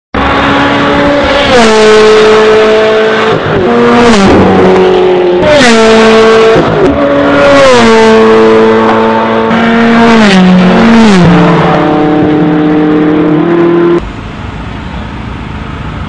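Ferrari 360 Challenge Stradale V8 engines screaming at high revs as the cars pass close by one after another, the engine pitch dropping sharply as each goes past, about six or seven times. The sound cuts off abruptly near the end to a much quieter steady background.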